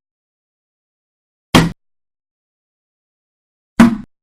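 Bullet impacts on plastic: two sharp cracking hits a bit over two seconds apart, each cut short within a fraction of a second, with dead silence between them.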